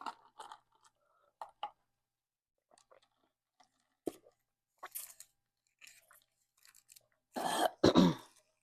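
Close-miked chewing of a salad, with scattered small wet mouth clicks. Near the end a louder, longer sound with a falling voice-like pitch.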